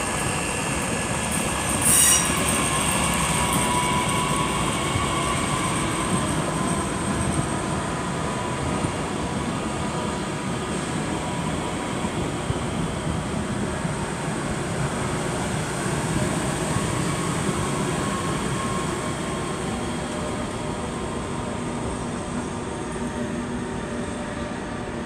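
Red DB Regio electric multiple unit pulling out along the next track, with a steady high whine and squealing wheels, its sound slowly fading as it leaves; a sharp click about two seconds in. A Thalys high-speed train rolls slowly in behind it.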